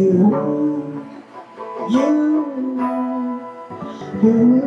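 A man singing to his own acoustic guitar, holding long notes that bend in pitch.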